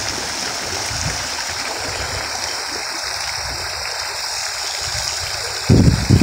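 Steady rush of running water. A low rumbling burst cuts in near the end.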